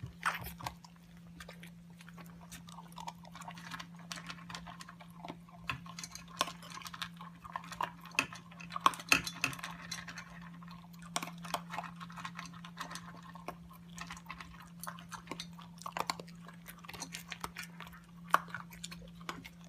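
A dog chewing and crunching its food, with irregular sharp crunches, over a steady low hum.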